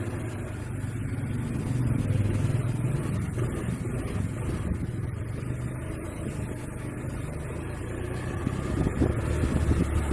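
Honda Vario CBS scooter's single-cylinder engine running, the throttle opened and eased so the sound swells a couple of seconds in and again near the end. The CVT runs smooth after repair of its clutch and roller housing.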